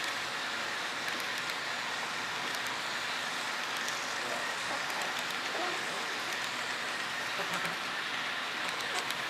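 Model intermodal train's container cars rolling past on the layout track: a steady rolling hiss of the wheels on the rails, with scattered light clicks. Faint voices in the background.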